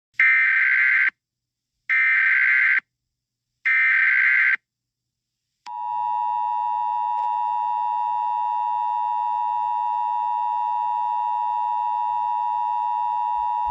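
Emergency Alert System alert opening: three separate bursts of SAME header data, each about a second long, then the steady two-tone EAS attention signal (853 and 960 Hz) sounding for about eight seconds and cutting off abruptly.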